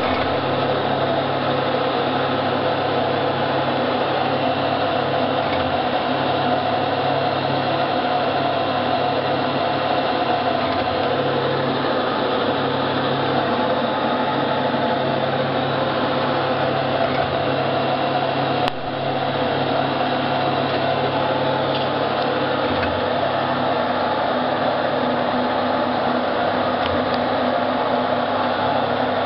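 Recycled-plastic roof-tile machinery running: a steady mechanical hum with several held tones, from its drive motors. There is one short click about two-thirds of the way through.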